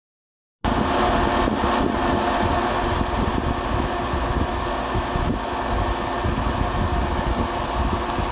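A moment of dead silence, then a steady, loud rush of air noise with an unsteady low rumble.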